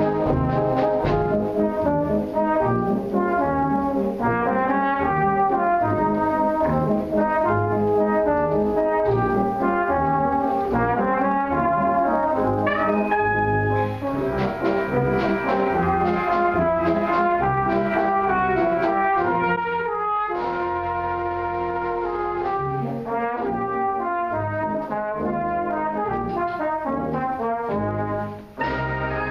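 Brass band playing, with a tenor horn soloist out in front. The band plays full for most of the passage, drops to a softer accompaniment about two-thirds of the way through, and breaks off briefly just before the end.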